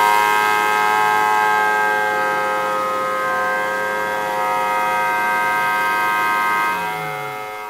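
3D-printed miniature Thunderbolt siren, its horn rotating, running at steady speed with its 4/5-port chopper sounding a two-tone chord. Near the end the siren begins to wind down, the chord falling in pitch as it fades.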